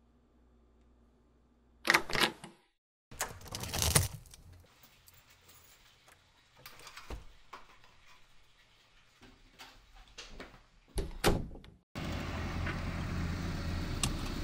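A few short knocks and clinks of a glass-fronted picture frame and loose glass shards being handled, then from about twelve seconds in a steady background of a car on a street.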